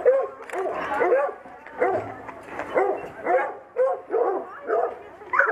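A pack of hounds barking and yelping, many arched calls overlapping one another in a continual chorus.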